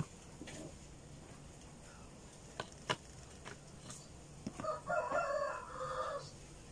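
A rooster crows once, a single call of about a second and a half in the second half. Before it come a few light taps and clicks as graham crackers are set into a plastic container.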